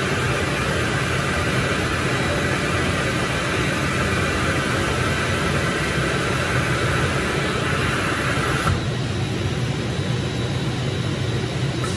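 IECHO digital cutting table running during continuous cutting with conveyor feed: a steady machine drone with a higher hiss on top that cuts off suddenly about nine seconds in, leaving the lower hum.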